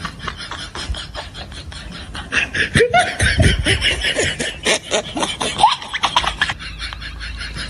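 People laughing in quick bursts of short breathy pulses, loudest and most voiced through the middle of the stretch.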